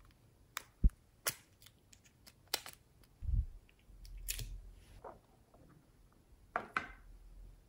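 A small plastic clay case being handled and opened: a string of sharp plastic clicks and taps, with a dull thump about three seconds in.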